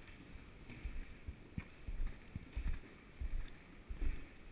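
Footsteps going down a staircase, heard as irregular low thuds with a few sharp clicks, picked up close by a camera worn on the walker's head.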